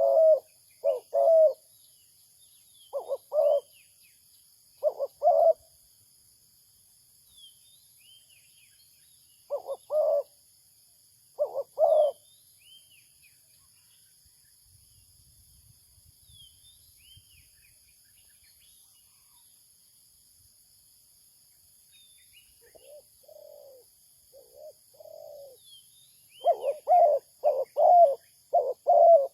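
Spotted dove cooing in short phrases of two or three low coos separated by pauses, with quieter coos around the middle-to-late part and a rapid, louder run of coos near the end. It is the calling of a decoy dove used to lure wild doves. Faint high chirps of small birds and a steady high hiss lie underneath.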